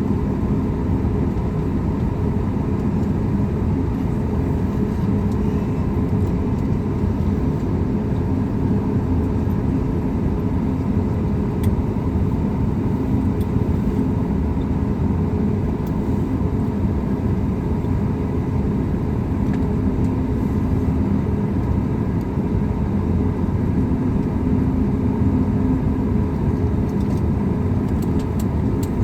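Steady cabin rumble inside a Boeing 737 MAX 8 waiting on the runway, its CFM LEAP-1B engines idling.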